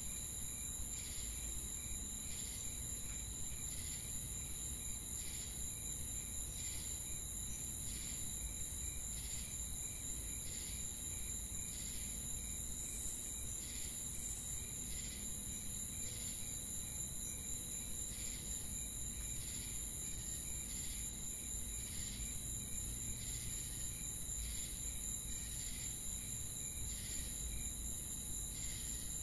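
Ambience of crickets chirping: a steady high, continuous trill with a regular pulsing chirp a little more than once a second.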